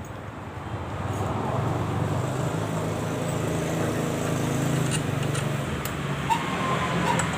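A motor vehicle engine running steadily, swelling in about a second in, with a few light clicks near the end.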